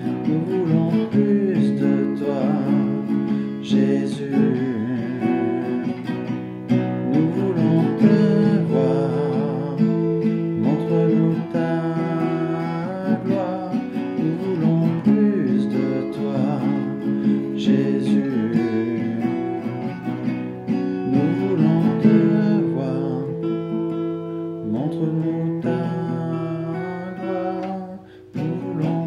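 Guitar-led worship music with strummed acoustic guitar over held chords, dipping briefly near the end before carrying on.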